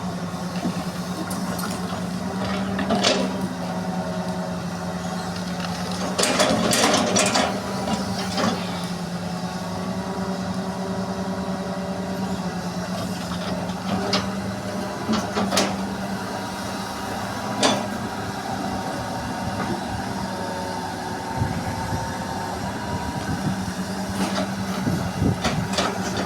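Hydraulic excavator's diesel engine running steadily while it works, with scattered knocks and clanks, busiest about six to seven seconds in.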